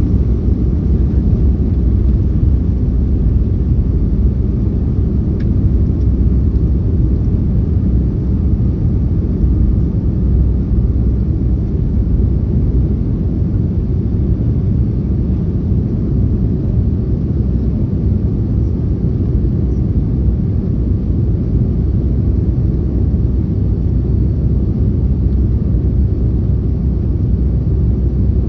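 Steady, loud rumble of a Boeing 757-200's engines and airflow heard inside the passenger cabin, even and unchanging with no spool-up or drop.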